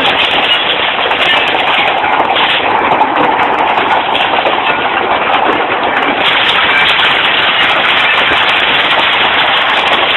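Hailstorm: hailstones striking hard surfaces in a loud, continuous clatter of many small impacts.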